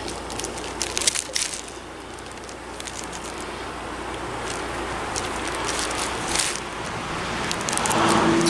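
Knife and hands working a skinned squirrel carcass on a sheet of crinkly plastic, cutting through the breastbone and opening the belly: scattered short crinkles and clicks. A steady hiss grows slowly louder, and a low steady hum comes in near the end.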